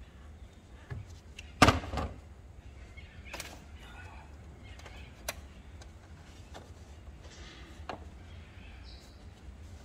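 Hand tools and engine parts being handled during a strip-down: scattered clicks and knocks, with a loud clunk and a second knock about two seconds in, over a low steady hum.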